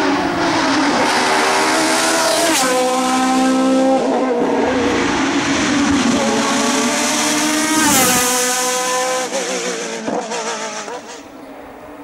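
Open-cockpit sports prototype race car's engine revving hard through a hairpin, its pitch climbing and dropping with several quick gear changes, then fading as the car moves away near the end.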